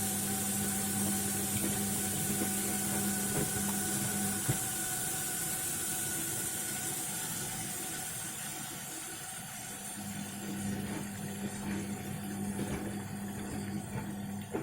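Washing machine mid-cycle, its pump running with a steady hum while water rushes through. The hum stops after about four and a half seconds and comes back near the end, and the water hiss dies away about halfway through.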